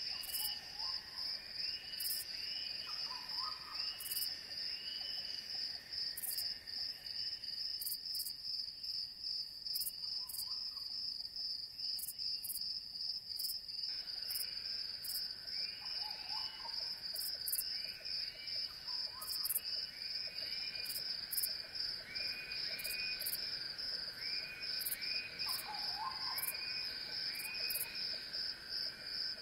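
Faint chorus of chirping insects: a steady, pulsing high trill with short chirps repeating over it and now and then a lower call.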